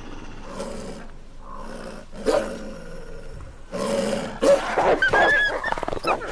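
Wolves snarling and growling over a kill. These are rank-enforcing growls as the pack feeds. The growls get louder in the second half, with a few short high whines or yelps about five seconds in.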